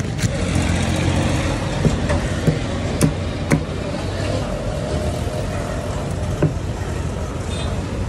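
Steady low rumble of road traffic and outdoor background noise, with a few sharp knocks standing out, several between about two and three and a half seconds in and one more near six and a half seconds.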